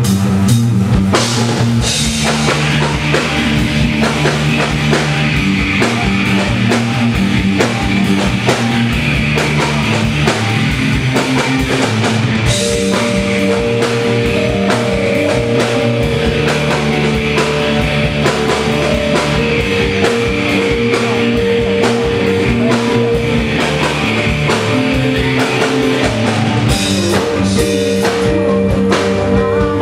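Live rock band playing an instrumental passage: drum kit driving a steady beat under bass and keyboard, with held notes coming in about halfway through.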